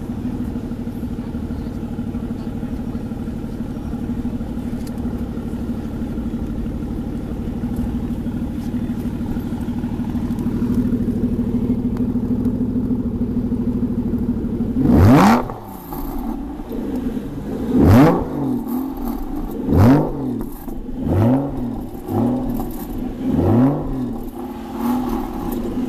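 Aston Martin V12 Vantage's V12 engine idling steadily, heard close at the tailpipe, then revved in about seven quick throttle blips from about fifteen seconds in, each rising sharply in pitch and falling back.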